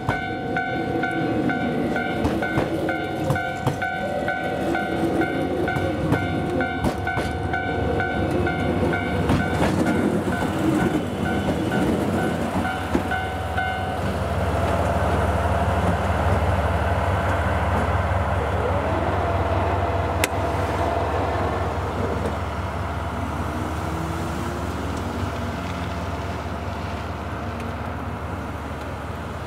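Snow-covered container wagons clattering past over the rail joints, with a steady high-pitched ring over them. About halfway through, the rear banking locomotive, a DF200 diesel-electric, passes with a deep engine rumble that slowly fades as it moves away.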